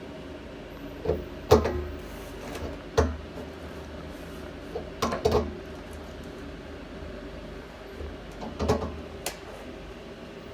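Scattered knocks and clunks of fittings and a float valve being handled and fitted on a drum, about six in all with a cluster in the middle, over a steady low hum.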